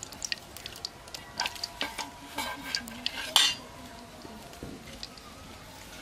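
Metal dishes and utensils clinking and knocking as a steel plate of ingredients is handled, some strikes ringing briefly, the loudest knock about three and a half seconds in; after that only a quiet steady hiss.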